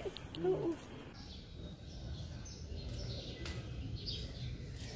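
Faint bird chirps, short falling high notes about a second apart, over a low steady rumble of outdoor background noise. A few words of conversation sound right at the start, and there is one sharp click near the middle.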